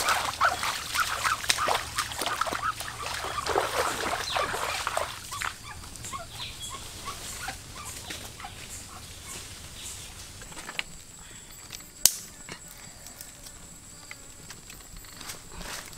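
Caught chicken squawking and flapping while held, its wings splashing in shallow muddy water, for about the first five seconds. After that it is much quieter, with one sharp snap about three-quarters of the way through.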